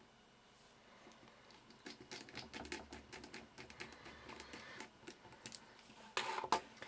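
Irregular small clicks and taps of a Torx screwdriver driving tiny screws into a BlackBerry Curve 8520's frame, starting about two seconds in. A brief louder rustle comes near the end.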